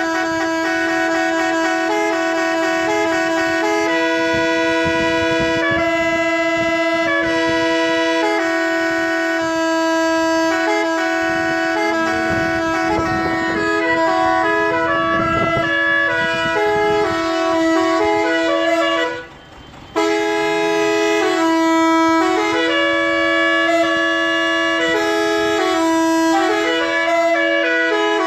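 Murli, the Rajasthani gourd pipe, playing a stepping melody over a steady unbroken drone note. The sound cuts out for under a second about nineteen seconds in, then resumes.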